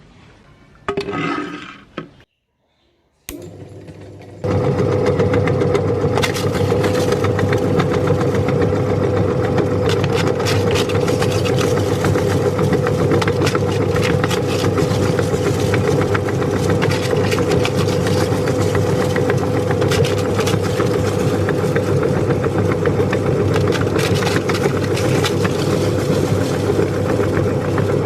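Electric meat grinder switching on about four seconds in and running with a steady motor hum, crackling as crisp pani puri shells are crushed.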